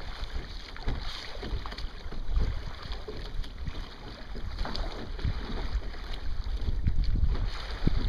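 Wind buffeting the microphone over water rushing and slapping along the hull of a Sunfish sailboat under sail, in uneven gusts and splashes.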